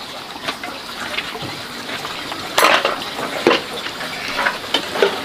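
Dishes and utensils clinking and knocking: a few separate clatters, the loudest about two and a half seconds in.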